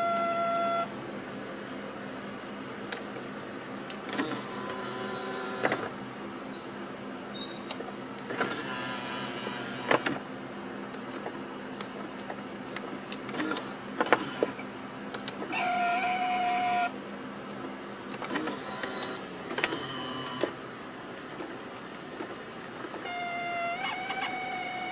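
Mercedes-Benz V-Class (W639) power-folding door mirror motor running over and over as the mirror folds and unfolds. Some passes are a steady whine, others a rough rasping grind with clicks, with a few sharp clicks between them: the abnormal noise the mirror makes when folding.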